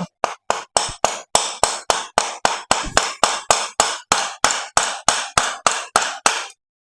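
Quick, even hammer blows, about four a second, knocking the piston pin out of a piston and connecting rod during engine teardown; the blows stop shortly before the end.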